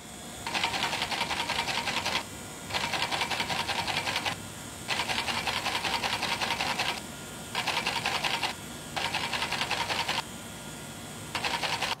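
A small machine in a shaving-brush hair-knot workshop clattering rapidly in runs of one to two seconds with short pauses between, about six runs in all.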